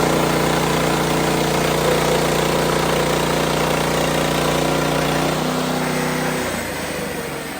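WoodMizer LX55 sawmill's engine running steadily. About five to six seconds in, its pitch steps down and the sound falls off as the engine slows.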